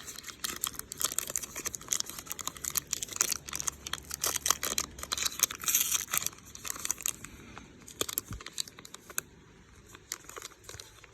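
A baseball card pack's wrapper being torn open and crinkled by hand: a dense run of crackles that thins out over the last couple of seconds.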